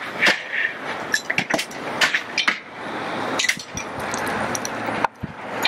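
Irregular sharp knocks and clicks of asbestos siding shingles being pried off a house and breaking as they fall. A steady rushing noise comes in about three seconds in and drops away near the end.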